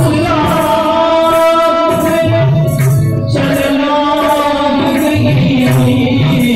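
A song: a singing voice over instrumental accompaniment.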